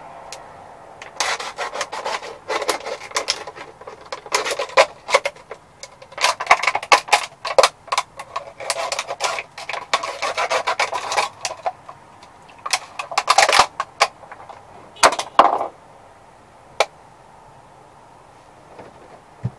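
Thin plastic water bottle crinkling and crackling in irregular bursts, with sharp clicks, as it is cut by hand into a scooper. The crackling stops about three-quarters of the way through.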